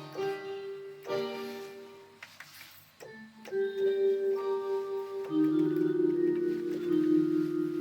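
Roland XPS-30 synthesizer playing held chords in a piano- and organ-like tone, the chords changing a few times with a brief lull partway: its sounds being tried out after the repair.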